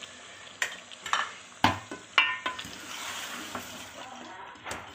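Fried chicken pieces sizzling in an aluminium pot as a yogurt and spice paste is stirred in, with the ladle knocking and scraping against the pot several times. The sizzle swells to a steady hiss around the middle.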